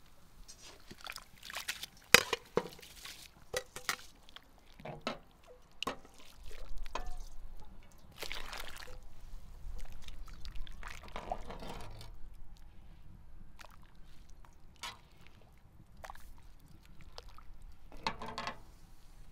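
Rice being poured into a large pot of boiling water, with splashing and sloshing in several bursts and a few sharp clinks, the loudest about two seconds in.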